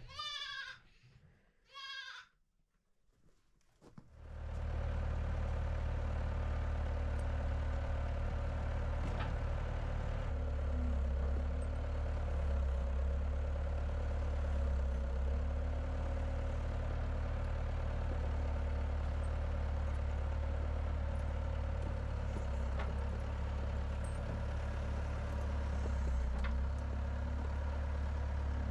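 Two goat bleats. Then a Bobcat 843 skid-steer loader's diesel engine starts up and runs steadily, dipping briefly in pitch a few times as the machine works.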